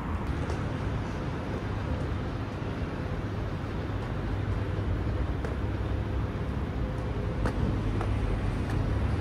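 City street traffic noise: a steady low rumble of road traffic, with a few faint clicks.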